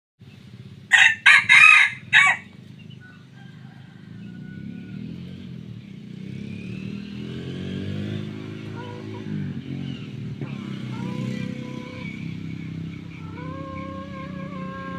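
A hybrid junglefowl decoy rooster crows once, loud and short, about a second in. Fainter drawn-out whistled notes follow later, over a low steady hum.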